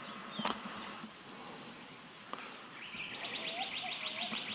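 Insects droning steadily at a high pitch in the bush. A quick chirping trill of about ten notes comes in after about three seconds, with faint whistling bird calls. A single sharp click sounds about half a second in.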